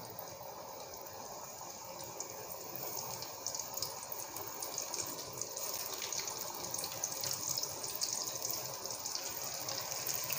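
Batter-coated chicken wings deep-frying in hot oil in a karahi: a steady bubbling sizzle with many fine crackles, growing a little louder after about three seconds.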